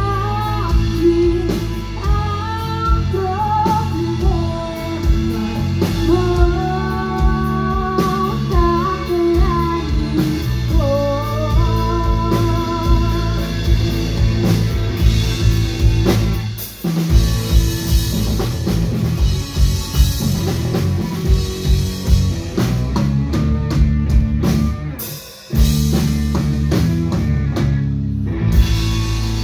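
Live rock band playing: a singer carries a melody over electric guitar, bass and drum kit for about the first twelve seconds. The band then plays on without the voice, with heavy drum hits and two short stops, one about halfway and one near the end.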